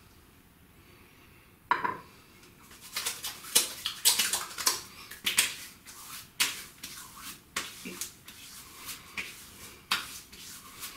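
Hands slapping and patting aftershave onto the face and neck: a run of irregular sharp slaps on wet skin. A single sharp knock comes a little under two seconds in, before the slapping starts.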